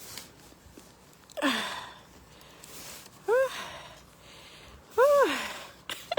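A woman's effortful breathing while shovelling heavy snow: a heavy exhale about a second and a half in, then two short pitched grunts with breathy exhales, about three and five seconds in, the last the loudest.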